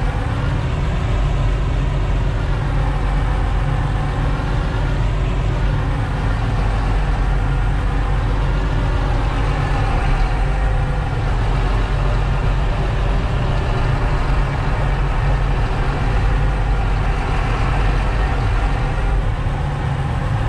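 Diesel engine of a John Deere 8520T track tractor running steadily with a heavy low drone, its pitch rising and falling a little as it is maneuvered.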